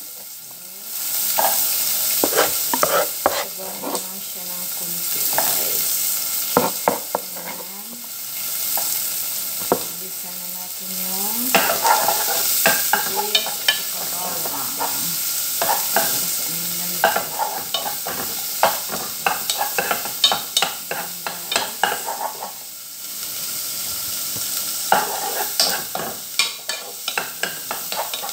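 Garlic sautéing in hot oil in a metal pot, sizzling steadily while a wooden spoon stirs it, with frequent clicks and knocks of the spoon against the pot.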